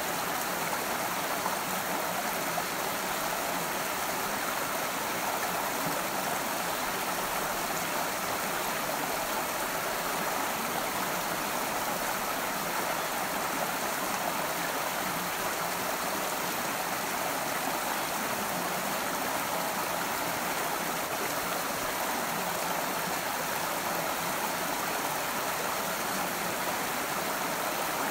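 A forest stream running: a steady, even rush of flowing water with no breaks.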